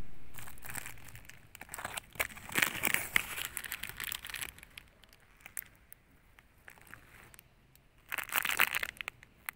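Clear plastic baglog bags of oyster mushroom substrate crinkling and crackling as they are handled, in dense bursts of sharp crackles over the first few seconds and again near the end.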